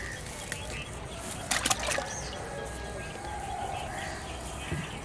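Outdoor pond-side background with a steady low hum and faint bird calls, broken by a quick cluster of sharp knocks or slaps about one and a half seconds in.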